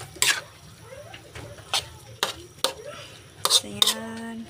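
Spatula scraping and knocking against a metal wok while tossing rice noodles, with several sharp clacks spread through, the loudest just after the start and about three and a half seconds in. A short steady voice-like tone sounds near the end.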